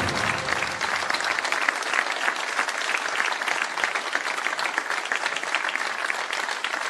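Studio audience applauding: a dense, steady clapping of many hands.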